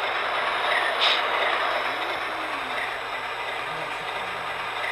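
MTH RailKing O-gauge model of a C&O RS-5 diesel locomotive pulling tank cars past on three-rail track: a steady rolling noise of the wheels on the rails, with one sharp click about a second in.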